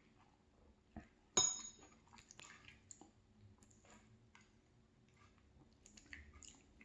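Faint chewing and wet mouth sounds of eating pasta, with one sharp ringing clink of cutlery against the bowl about a second and a half in.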